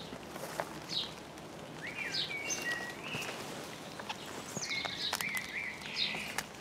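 Common blackbird singing in the background: several short fluting, warbling phrases with sliding notes, separated by brief pauses.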